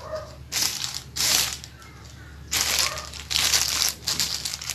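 Clear plastic film crinkling and rustling as it is pulled and peeled off the metal rods of a ring-light phone stand, in four or five loud bursts.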